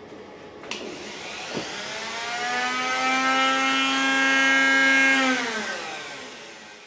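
Handheld rotary tool with a wire wheel spinning up, running at a steady high whine with a hiss of wire on metal while it scrubs rust off a steel motorcycle frame, then winding down near the end.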